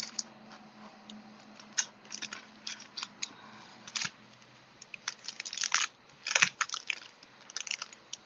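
Craft supplies being handled at a work table: irregular light rustling and clicking, busiest a little past the middle.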